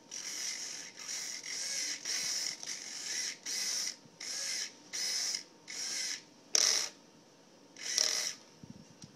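Small 12 g hobby servos driving the pan/tilt camera plate of a carbon-fibre FPV pod: about a dozen short whirring bursts of the geared servo motors, a little over one a second, with a sharper, louder burst about six and a half seconds in.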